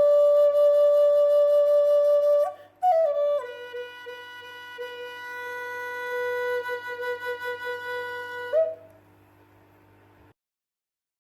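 Solo flute playing slowly: a long held note, a short break, a few quick notes stepping down, then a long lower note that wavers toward its end. The note stops about nine seconds in, ending the piece.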